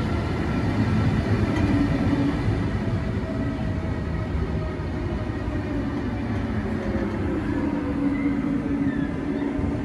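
DSB class EB electric locomotive (Siemens Vectron) hauling ABs passenger coaches, running with a steady low rumble and a hum of a few steady tones from its traction equipment.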